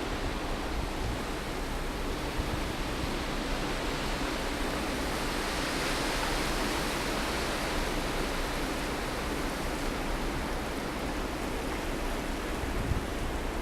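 Blizzard wind blowing steadily outdoors, a continuous rush that swells into a stronger gust near the middle and then eases back.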